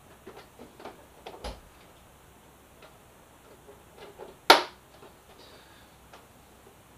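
Plastic fairing piece being pressed onto a Yamaha FZ6R's front end by hand. A run of light plastic clicks and taps comes in the first second and a half, then one loud sharp snap about four and a half seconds in as the piece is pushed into its clips.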